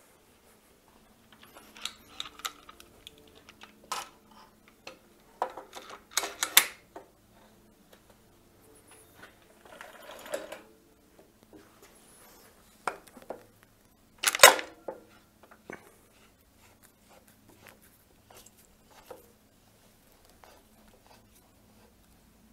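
Intermittent metal clinks, knocks and scraping as bolts and parts are worked into place on a planer's cast-iron top casting, with one sharp clank, the loudest, about two-thirds of the way through.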